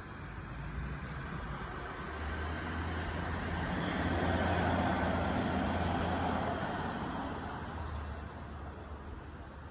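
Engine noise of a passing vehicle, swelling to a peak about halfway through and fading away, over a steady low hum.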